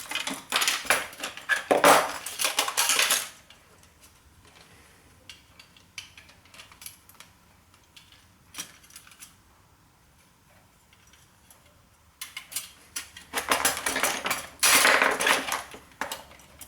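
Pliers and the metal parts of a floppy disk drive clinking and rattling as it is taken apart. The clatter comes in two busy spells, one at the start and one near the end, with only faint handling ticks in between.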